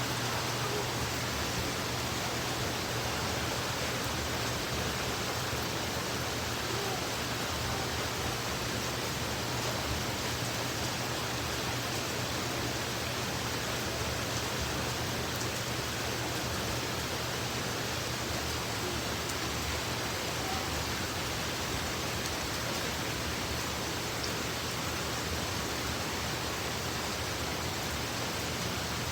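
Heavy rain falling, a dense, even hiss that holds steady throughout.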